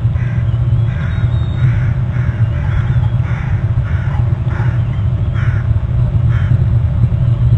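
Bald eagle eaglet calling in a run of short, high, repeated notes, one or two a second, over a steady low rumble.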